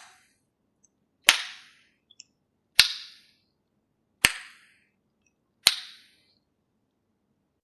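Tongue clicks: the tongue is pressed behind the upper front teeth against the palate and snapped down, making a loud, sharp pop. Four pops come evenly about every second and a half, each with a short ringing tail, and they stop a little over a second before the end.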